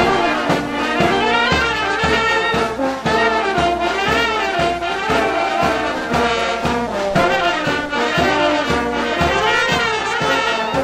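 Street brass band playing a lively tune: brass and saxophone carrying the melody over an even beat of about two strokes a second.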